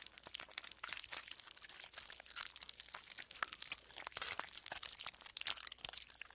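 Green slime being squeezed and worked by hand, giving a dense run of small crackling, squelching clicks.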